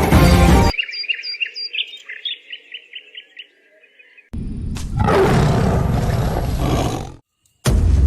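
Music cuts off, then a bird chirps in a quick repeated series for about three seconds. A loud, rough roar follows for about three seconds and cuts off suddenly, and music comes back near the end.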